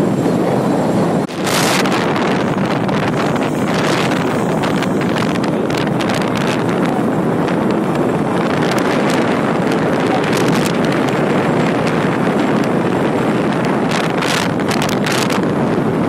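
Wind rushing over the microphone of a Bajaj Pulsar NS200 motorcycle under way, with the bike's engine running underneath. The rush is steady, with buffeting gusts a couple of times and again near the end.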